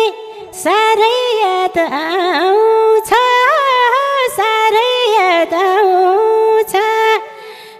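A woman singing a Nepali dohori folk melody into a microphone in long, ornamented, wordless held notes with short breaths between phrases, over folk band accompaniment with occasional drum strokes.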